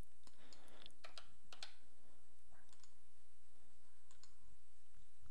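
Computer mouse clicking: a handful of scattered sharp clicks, several in quick pairs, over a steady low hum.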